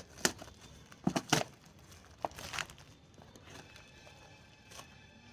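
Courier packaging being cut and torn open: a handful of sharp crinkling, tearing noises in the first few seconds, loudest about a second in, then fainter rustling handling with one more crackle near the end.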